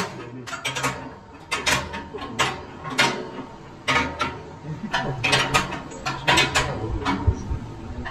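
Irregular metallic clicks and knocks as a heavy steel end plate is shifted and worked into place by hand on a forage harvester's rotor housing.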